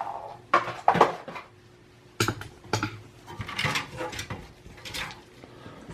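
Desktop computer parts being handled: a series of light clicks, knocks and rattles of metal and plastic, several separate strikes a second or so apart.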